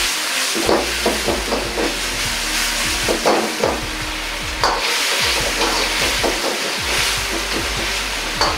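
Braising liquid boiling and sizzling hard in a carbon-steel wok over a high gas flame as it reduces around taro pieces, with the burner running beneath and a few short knocks of a metal ladle against the wok.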